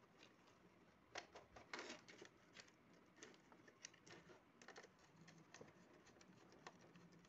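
Faint, scattered small clicks and scrapes of a screwdriver working the brass terminal screws of a plastic switchboard while a copper wire is fitted into them.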